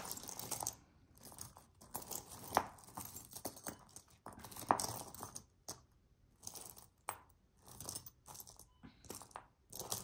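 Small jewelry pieces being handled and sorted by hand: irregular clicks and clinks of metal and plastic pieces knocking together, mixed with rustling. A couple of sharper knocks stand out, the loudest a little before the middle.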